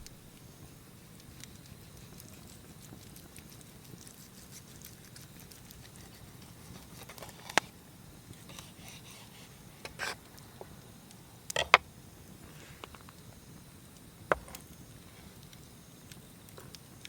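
Wood fire in a fire-disc pit crackling faintly, with a handful of sharp clicks and knocks about halfway through, the loudest a double click.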